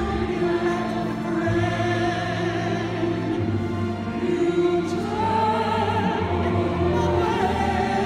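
Operatic soprano singing with a live string orchestra, holding long notes with vibrato over sustained low string notes, then moving to a higher held note about five seconds in.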